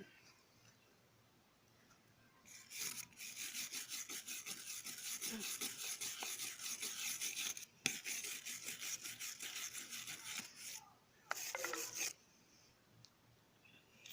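Wire brush scrubbing a rock in rapid back-and-forth strokes, about five a second, to clear grime off it. It starts about two and a half seconds in, with short breaks near eight and ten and a half seconds and a last short spell near twelve seconds.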